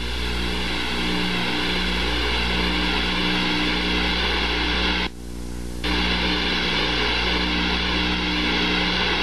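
Jet aircraft engines at high power as a carrier jet goes around after a wave-off, a steady, loud noise with a short dip about five seconds in.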